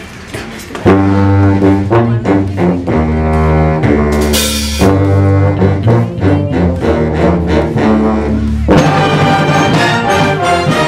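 A school band playing: brass and clarinets come in together about a second in with loud, held chords over a deep bass line. A brief bright crash sounds near the middle, and the music turns to a busier passage near the end.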